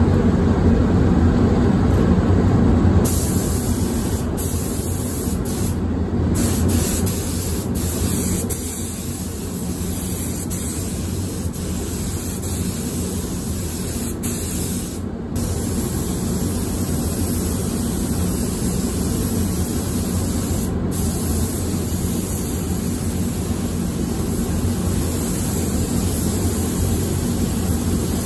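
Spray gun hissing steadily as clear coat is sprayed, over a steady low rumble, with a few short breaks in the hiss.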